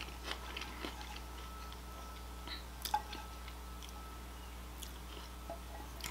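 Soft eating sounds: faint, scattered clicks of a wooden fork and spoon against a plate as salad is gathered up, with one slightly louder click about three seconds in.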